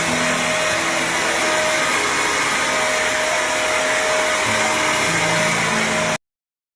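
Steady, loud rushing noise with a faint hum underneath, starting abruptly and cutting off suddenly about six seconds in.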